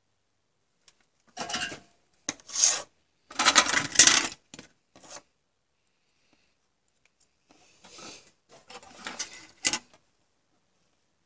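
Circuit boards being handled and slid across a wooden tabletop, scraping and rubbing in several irregular bursts over the first half and again near the end.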